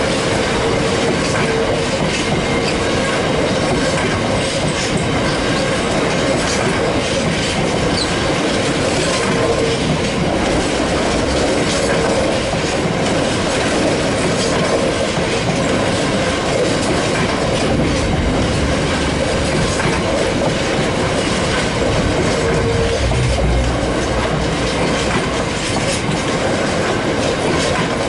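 GB Railfreight freight train of open box wagons passing close by at speed: a steady rolling rumble of steel wheels on the rails with repeated clicks over the rail joints and a wheel squeal that comes and goes.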